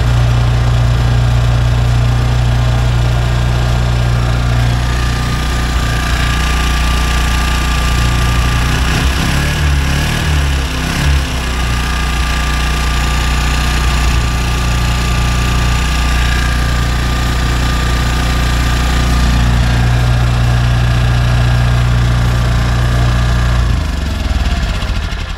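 Denyo GE-550 portable generator's Robin engine running steadily under a light-bulb load after repair of a detached governor spring and an air leak that had made it hunt. The engine speed wavers briefly about ten seconds in, then settles; the engine stops near the end.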